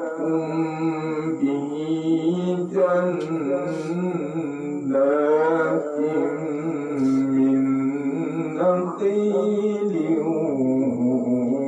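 A man reciting the Quran in the melodic tilawah style, in a high voice through a microphone: long phrases held and ornamented with wavering turns of pitch, broken by short breaths about a second and a half, three, five and nine seconds in.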